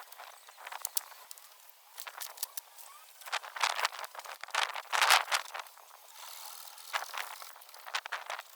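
Wooden shed roof being pulled and pried apart: irregular cracks, creaks and rattles of timber and boarding, in clusters, loudest about five seconds in.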